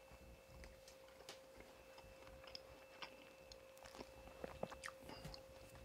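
Near-quiet room with a faint steady high whine and scattered soft clicks and ticks.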